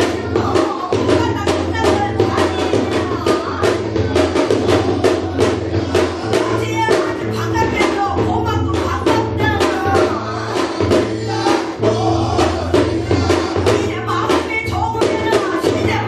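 Korean shamanic gut ritual music: fast, steady drumming on traditional drums such as the janggu, with singing over it.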